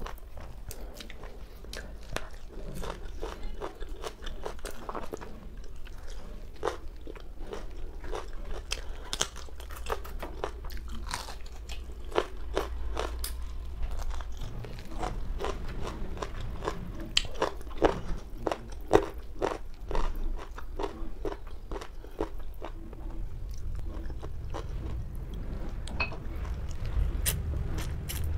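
A person eating: biting into and chewing raw green chilli and whole roasted chicken, with a steady run of irregular crisp crunches and wet mouth clicks.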